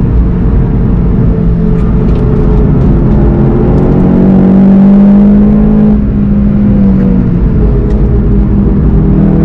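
In-car engine sound of a VW Golf 7 GTI TCR's turbocharged four-cylinder under load at speed, over tyre and road noise. The engine note climbs and is loudest about halfway through, then drops back as the driver eases off and holds a steady note.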